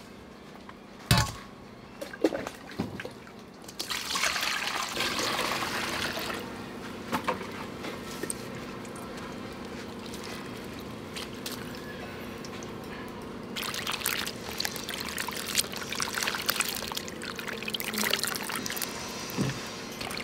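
Water pouring and splashing in a large steel bowl as small frogs are tipped in and swished around by hand for washing. A couple of sharp knocks come in the first two seconds, and a faint steady hum runs underneath.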